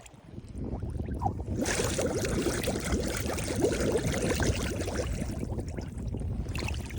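Air horn discharging underwater: the gas rushes out as a steady bubbling gurgle with no horn note, building over the first two seconds and easing off near the end.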